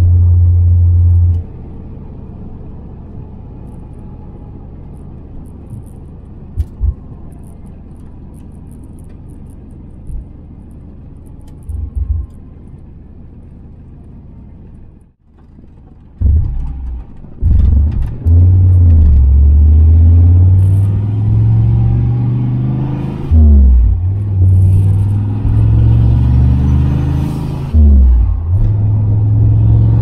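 Turbocharged Fox-body Mustang's 5.0 V8 heard from inside the cabin: a hard pull for about a second and a half, then quiet steady cruising. From about halfway on, repeated hard accelerations with the engine pitch climbing and dropping away at each gear change.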